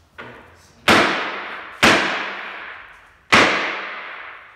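Glass pane with security film being struck hard: a light hit, then three loud blows, the last after a longer pause. Each blow trails off in a long ringing decay.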